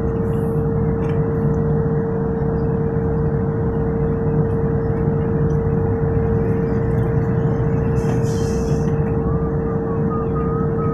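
Steady drone of drilling-rig machinery running, with a constant whine held on one pitch.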